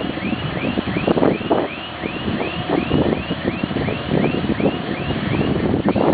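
Motor grader's diesel engine running as the machine drives over dirt, with a few clanks and a regular high squeak repeating about two and a half times a second.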